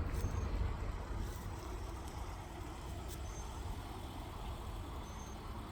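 Steady low outdoor rumble with no speech, easing slightly over the first couple of seconds, with three faint, short high chirps near the start, about three seconds in and near the end.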